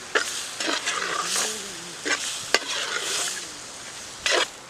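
Chicken curry frying and sizzling in oil in a pan, stirred with a ladle: a scrape every second or so, with one sharp metal clack about halfway through.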